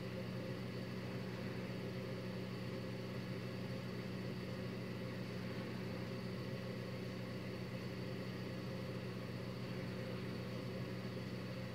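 Steady low background hum with a faint high whine over a light hiss, unchanging throughout.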